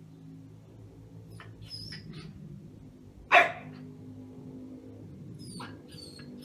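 A dog barks once, short and loud, about three seconds in, over a low steady hum.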